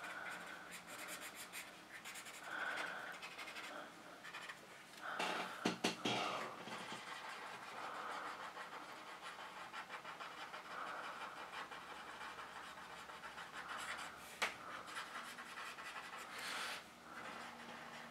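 Graphite pencil shading on the journal's paper: soft, uneven scratching and rubbing strokes. About five seconds in the paper is shifted, giving a louder rustle, and there is one sharp tick later on.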